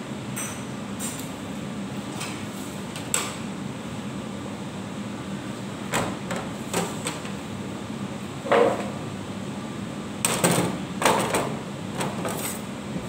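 Scattered knocks and clatters of dishes and kitchen items being handled and set down on a countertop, over a steady background hum. The loudest thump comes about eight and a half seconds in, followed by a cluster of clatters a few seconds later.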